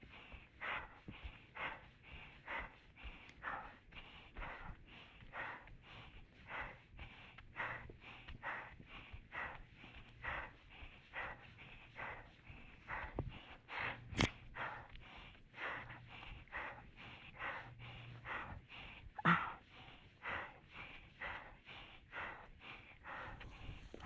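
A hiker breathing hard in a steady rhythm as he walks, about three breaths or steps every two seconds, winded from carrying a heavy bag. One sharp click about midway.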